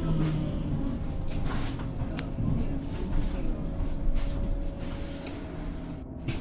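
Switch MetroCity electric bus heard from inside the cabin as it slows: the electric motor's whine falls in pitch at the start and fades under a low road rumble, with a brief high squeal about three seconds in.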